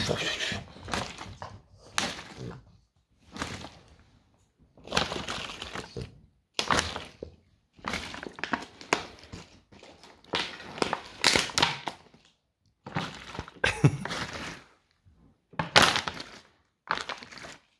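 A French bulldog mouthing and crunching a plastic bottle, in irregular bursts of crackling and knocking, each a second or so long, with short pauses between.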